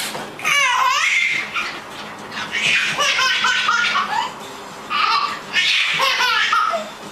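A baby laughing in repeated bursts of belly laughs and high squeals.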